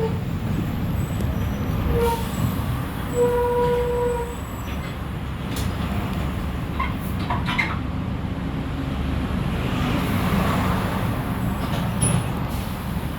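Mercedes-Benz OF-1418 city bus's front-mounted diesel engine running with a steady low rumble, heard from inside the bus as it drives. A short high tone sounds a few seconds in, and a few sharp rattles or knocks come through in the middle.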